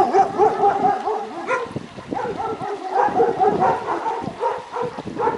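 Dogs barking: a quick, unbroken run of short, pitched barks and yips, several a second.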